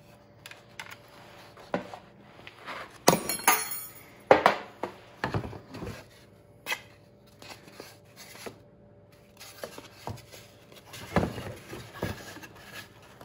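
Foam taxidermy manikin legs being handled and trimmed of their flanges on a table: scattered knocks and clicks, with a quick cluster of sharp clicks about three seconds in and a loud knock just after four.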